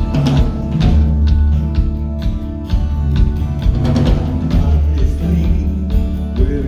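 Live band playing: drum kit hits over a steady bass line, with other instruments sustaining notes above.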